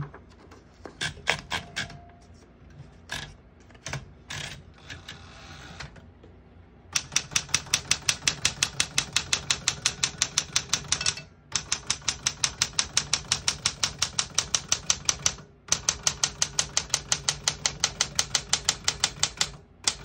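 1968 Smith-Corona Super Sterling manual portable typewriter: a few scattered mechanical clicks, then about seven seconds in a fast, even run of keystrokes at roughly seven a second, with two brief pauses.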